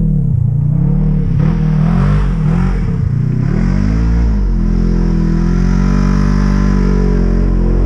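Polaris RZR side-by-side's engine revving hard, its pitch swinging up and down as it slides across the snow, then holding a steady pitch from about halfway through.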